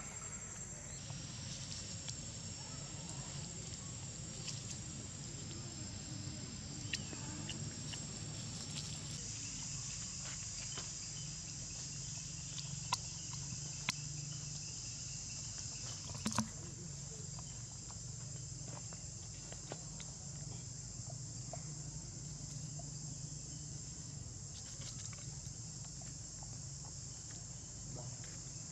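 Steady high-pitched insect drone that grows louder about nine seconds in, over a low steady hum, with a few light clicks scattered through.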